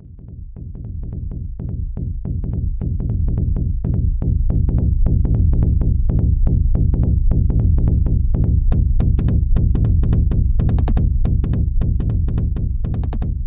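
Electronic dance music with a steady drum-machine beat, fading in over the first few seconds and then running loud and even.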